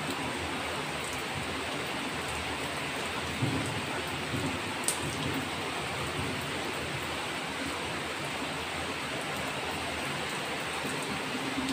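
Steady rain falling on trees and rooftops, an even hiss with a few sharp drop ticks, the clearest about five seconds in.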